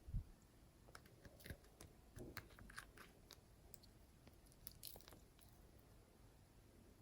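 Clear slime being worked by hand, giving faint scattered crackling clicks and pops, with a soft low thump right at the start.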